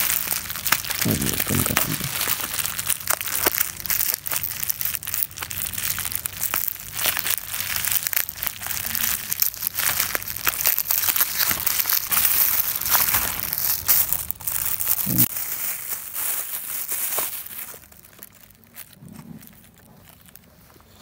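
Plastic bubble wrap crinkling and crackling as it is handled and pulled off a small tripod. It stops about three-quarters of the way in, once the tripod is unwrapped.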